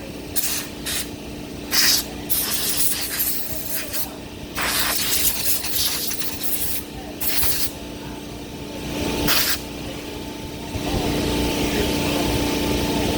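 Repeated short bursts of spray hissing. About 11 seconds in, a small engine's steady running hum grows louder and holds.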